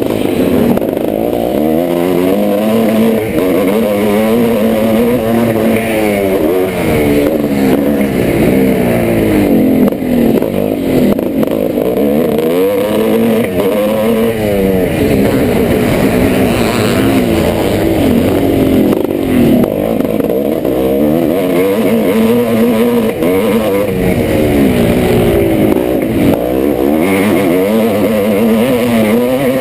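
1986 Yamaha YZ490's single-cylinder two-stroke motocross engine being ridden hard, its pitch climbing and dropping every few seconds as the throttle is opened and shut through the track's sections.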